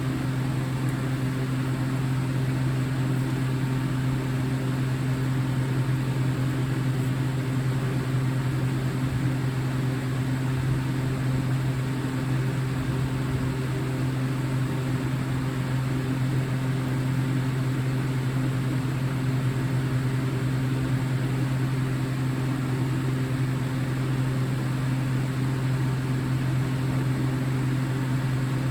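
A steady low hum at an even level, with no alarm sounding.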